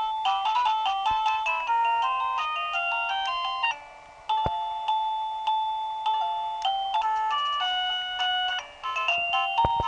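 Plug-in chime box of a CSMARTE wireless doorbell playing its built-in electronic chime tunes through its small speaker. One melody of short beeping notes stops about four seconds in, and after a brief pause another tune begins.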